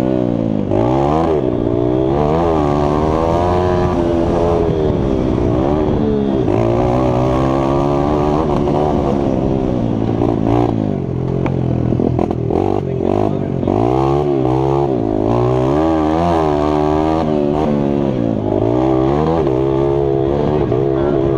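Mini bike's motocross engine racing hard, its pitch climbing and dropping over and over as the throttle is opened and shut and the gears change. A few clattering knocks come around the middle.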